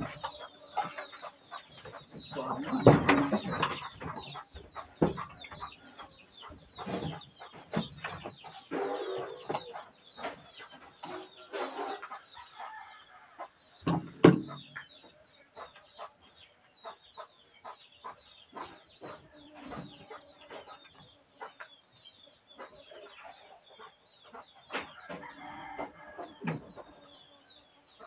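Chickens clucking in the yard, with many short high chirps throughout and a few louder calls and knocks scattered through.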